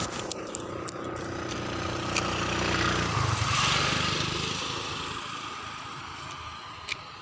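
Motorbike engine passing close by: it grows louder to a peak about three and a half seconds in, drops in pitch as it goes past, then fades away.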